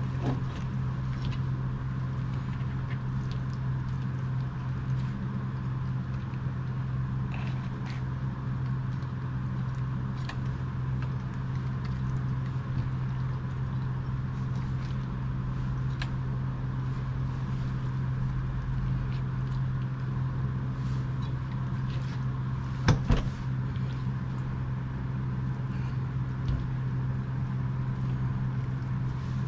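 A knife cutting and scraping a rockfish on a wooden cutting board, with scattered light clicks and taps and two sharper knocks near the end, over a steady low mechanical hum.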